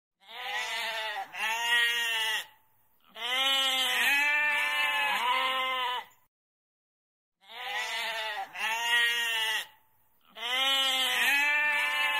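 Goat bleating: four bouts of quavering bleats, each two to three seconds long, separated by short silences.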